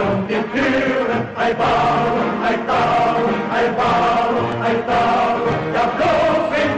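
Background music with a choir chanting sustained notes over a steady beat.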